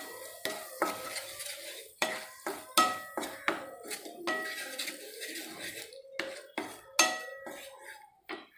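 A wooden spatula stirring onion-tomato masala in a nonstick frying pan: irregular knocks and scrapes against the pan, roughly every half second, each with a brief metallic ring.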